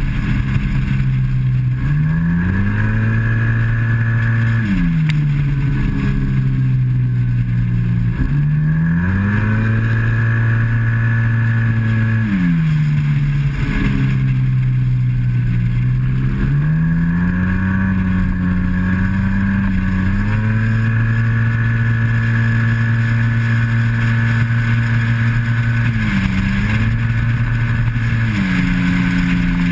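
Yamaha TMAX maxi-scooter's twin-cylinder engine at speed on track, heard from an onboard camera over heavy wind noise. The revs hold steady on the straights, then fall away several times as the throttle is closed for corners and climb again on the way out.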